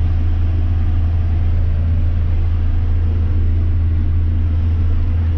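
Steady drone of a John Deere 6175M tractor's six-cylinder diesel engine, heard from inside the cab as it works across the field pulling a Väderstad Tempo T6 planter. A deep, constant hum with an even rumble over it.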